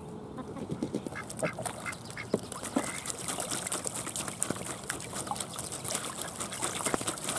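Domestic ducks bathing in a shallow plastic kiddie pool, beating their wings and splashing water, with a few short quacks about a second in. The splashing grows busier and louder toward the end.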